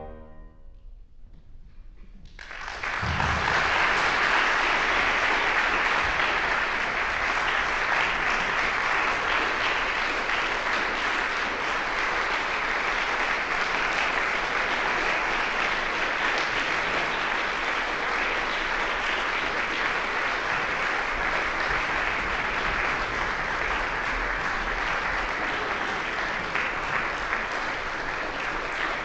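The last chord fades into a brief hush, then about two seconds in an audience starts applauding, a steady dense clapping that goes on as the performers bow.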